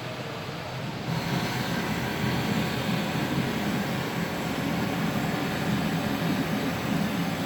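A machine running steadily with a low, rough hum and a hissing edge, growing louder about a second in and then holding level.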